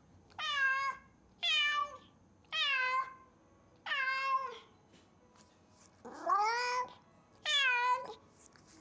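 Domestic cat meowing loudly and repeatedly while left home alone: six drawn-out meows about a second apart, each dropping in pitch at its end.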